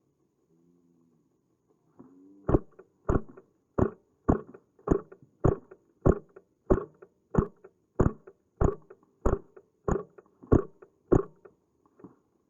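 A steady beat of sharp thumps, about one and a half a second, each carrying a faint high tick, beginning about two and a half seconds in after near silence and stopping about a second before the end.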